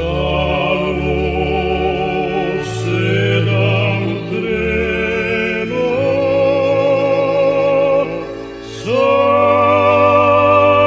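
A song: a voice with wide vibrato sings long held notes over a low, sustained accompaniment. It pauses briefly about eight seconds in, then takes up a new long note.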